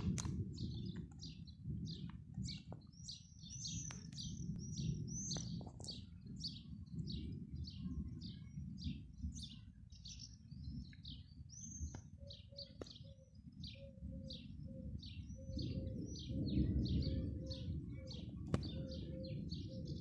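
A small bird chirping over and over, short high chirps about two or three a second, over an uneven low rumble.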